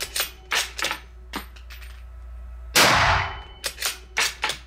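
Remington Model 700 bolt-action rifle in .308 Winchester fired once a little under three seconds in, the shot ringing on in a hard-walled indoor range. Before and after the shot come quick metallic clicks and clatter as the bolt is cycled and the spent case is ejected.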